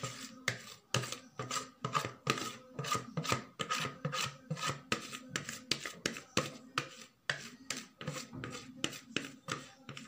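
Wire whisk scraping round the inside of a plastic mixing bowl in quick repeated strokes, about three a second, working the last of the cake batter out into the pan.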